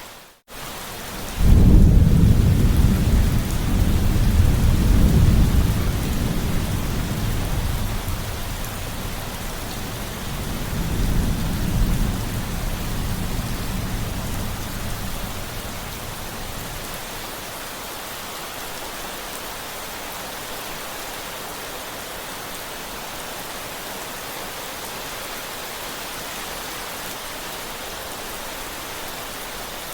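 Steady rain falling, with a long rolling thunder rumble that breaks in suddenly about a second and a half in after a brief dropout. The rumble swells again around eleven seconds and dies away after about fifteen seconds, leaving the rain alone.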